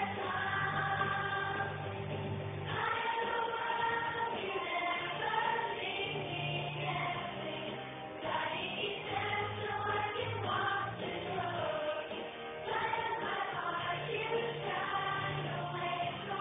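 Children's choir singing a song, with an accompaniment holding steady low notes under the voices.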